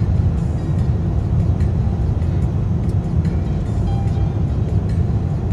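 Steady low rumble of engine and airflow noise inside the cabin of an Airbus A350-900 on approach with its landing gear extended.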